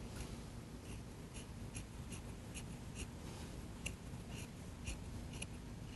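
Scissors snipping through mink fur and its leather backing in short, faint cuts, about two snips a second.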